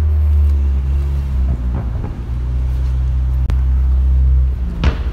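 A motor vehicle's engine running close by on the street, a steady low drone, with a brief rustle near the end.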